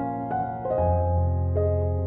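Slow background music on keyboard, with held notes and a deep bass note coming in just under a second in.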